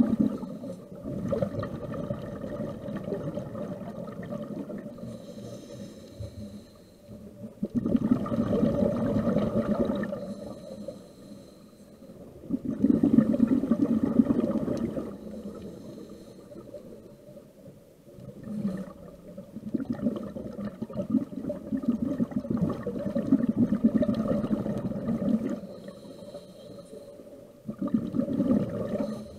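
Scuba diver breathing through a regulator underwater. Each breath is a short hissing inhale through the demand valve, followed by a louder, low rush of exhaled bubbles, repeating about every five seconds.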